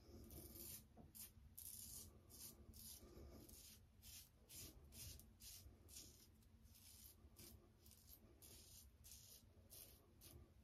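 Stainless steel safety razor with a Feather blade scraping through lathered stubble in short, quick strokes, a few each second, faint.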